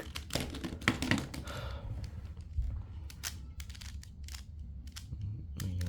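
Plastic clicking of a 3x3 speed cube's layers being turned one-handed, with irregular clicks a few times a second.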